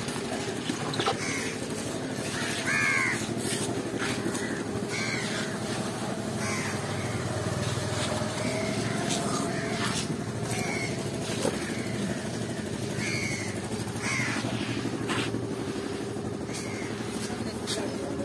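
Crows cawing, short calls repeated every couple of seconds, over a steady low hum.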